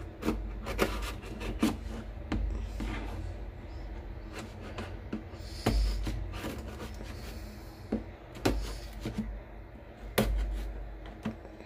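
Scissors cutting and scraping through packing tape along the seam of a cardboard shipping box, with many irregular sharp clicks and snips and dull bumps as the box is handled.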